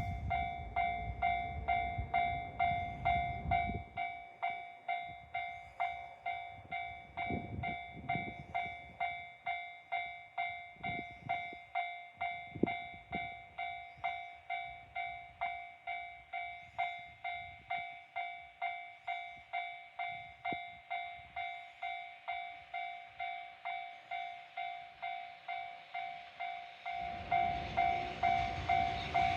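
Railway level crossing alarm ringing, an even electronic ding repeated about twice a second. A low rumble is heard for the first few seconds and comes back near the end.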